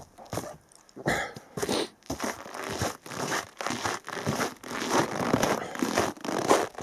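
Footsteps crunching on dry snow in deep frost (about −43 °C): separate crunches in the first two seconds, then a dense run of crunching.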